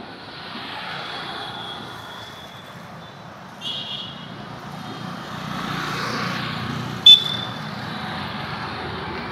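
Outdoor road traffic noise, swelling as a vehicle passes about six seconds in, with a few short high-pitched horn toots, the loudest one about seven seconds in.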